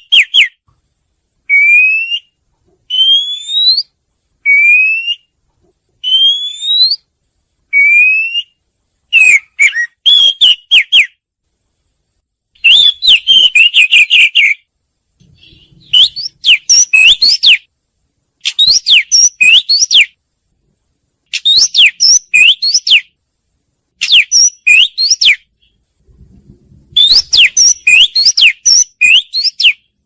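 Oriental magpie-robin singing: first a string of single clear rising whistles about a second apart, then rapid phrases of varied whistled notes, one to two seconds long, with short pauses between them.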